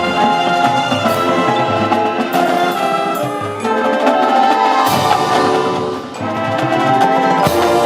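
High school marching band playing in competition: brass section sustaining chords, with drums under them.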